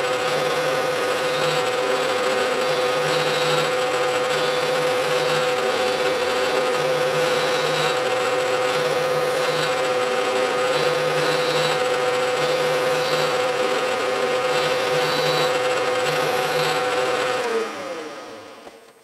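Bridgeport milling machine spindle running with a 1/4-inch end mill nibbling a slot into a thin-walled threaded steel tube, a steady hum. Near the end the spindle is switched off and winds down, its tone falling away.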